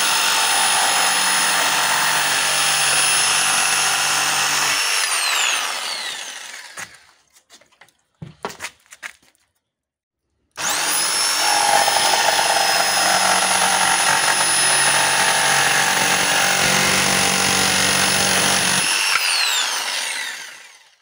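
CAT DX57 electric jigsaw cutting a curve in a thin board, its motor running steadily, then winding down about five seconds in. After a few light knocks and a pause, it starts suddenly about ten seconds in, runs steadily through another cut and winds down near the end.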